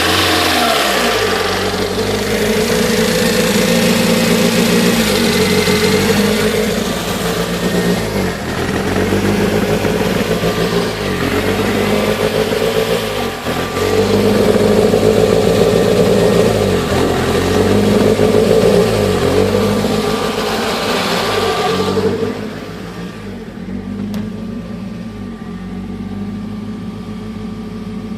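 Supercharged Toyota MR2's 1.6-litre four-cylinder engine running, its revs rising and falling several times, then settling to a quieter, steady idle about 22 seconds in; an idle the owner calls rough.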